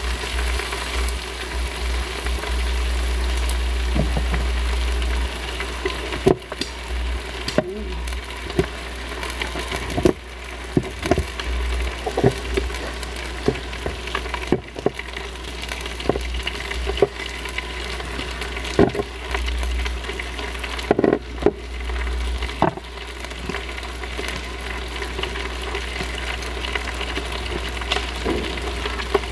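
Squid sizzling steadily on an electric grill pan, with short clicks and taps of metal tongs against the pan as the pieces are turned.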